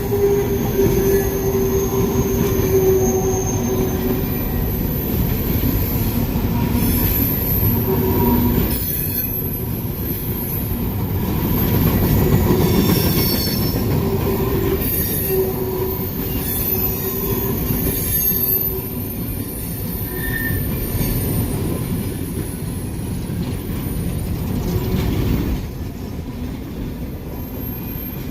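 CSX train rolling past at close range, its steel wheels squealing on the rail as the cars go by. The noise eases off somewhat near the end.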